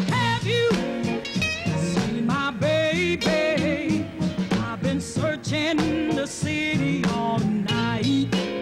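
A woman singing an upbeat song over a band with a steady beat.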